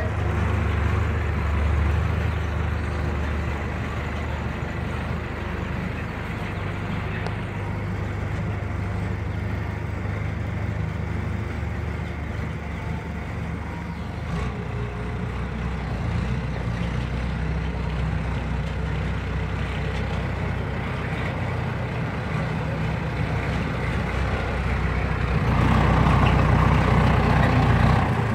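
The engine of a 1940s Chevrolet truck running steadily, louder near the end.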